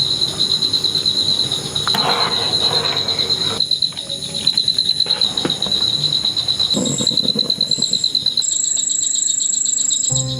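Insects trilling: a steady, rapid, pulsing chirr that runs throughout, joined about eight seconds in by a second, higher-pitched steady buzz.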